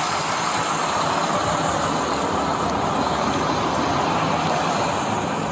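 Steady highway traffic noise heard through a police body camera's microphone on the roadside, with no single loud event.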